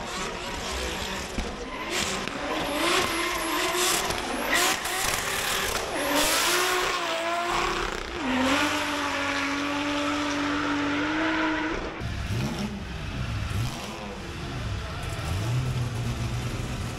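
Competition car engines revving hard with tyre squeal as cars are driven sideways up a tarmac hill course, the pitch gliding up and down, then held steady for a few seconds as a rally car slides past. About twelve seconds in the sound changes abruptly to a lower engine drone.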